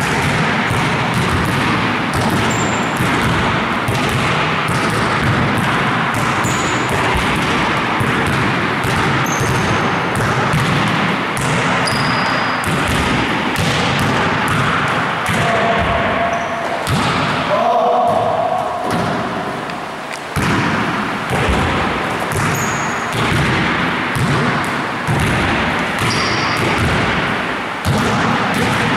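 Basketballs bouncing and thudding during passing drills, a steady run of impacts, with short high squeaks now and then.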